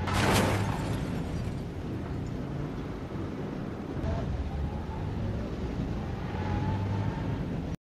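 A short, loud crash of a car collision a split second in, over a steady low hum and hiss.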